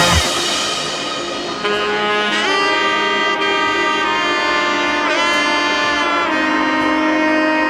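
Background music: a melody of long held notes that slide between pitches, just after a drum-heavy passage stops.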